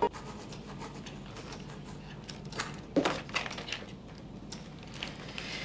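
Quiet room tone with a few scattered light clicks and taps about two to three and a half seconds in, the sharpest near three seconds.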